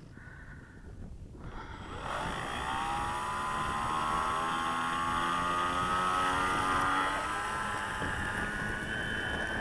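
Electric motor and propeller of a foam-board RC Storch spooling up about two seconds in: a whine that rises in pitch and is then held at high throttle for a takeoff roll through tall grass that fails to get the plane airborne.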